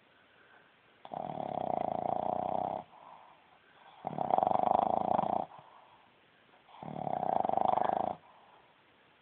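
Boston Terrier snoring loudly through its short snout: three long snores, each about a second and a half, coming roughly every three seconds with quiet pauses between.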